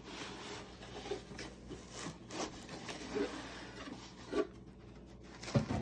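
Packaging rustling and rubbing as an item is pulled out of its box and unwrapped, with scattered small clicks and a louder knock near the end.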